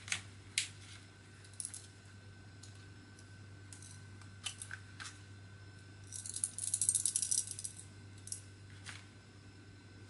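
Handling noises: a few sharp clicks and light clatter of a small plastic car charger and its metal alligator test clips being handled and set down. About six seconds in, plastic sheeting crinkles for about a second and a half, the loudest sound.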